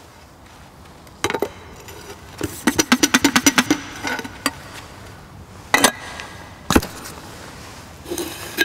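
Metal knocks and clinks of a golf hole cup and a greenkeeper's hole-changing tool: a single knock, then a quick rattling run of about ten clicks, then several sharper separate knocks.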